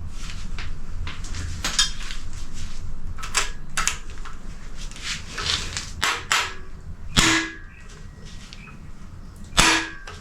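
Metal tools clicking and clanking on a Ford FE engine while stuck Phillips-head screws are worked out of the camshaft retaining plate, with two loud, ringing metal strikes in the second half.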